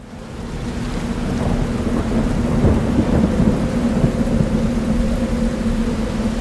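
Thunder rumbling over steady heavy rain, fading in over the first second or so, with a steady low hum underneath.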